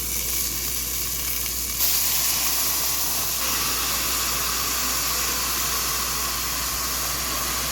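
Beef rib sizzling in a hot cast-iron pot; about two seconds in, water is poured in and the sizzle jumps to a louder, steady hiss of steam as the browned crust is deglazed.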